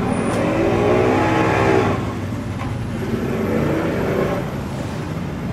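Boat outboard engines revving up and easing back twice, over a steady low engine drone.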